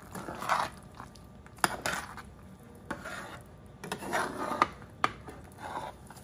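Metal spoon stirring a wet quinoa and vegetable mixture in a skillet: irregular scrapes against the pan with a few sharp clinks of metal on the pan.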